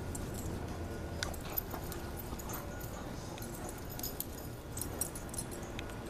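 An English bulldog and a Great Swiss Mountain Dog puppy play-fighting: dog noises with scattered short clicks and scuffles.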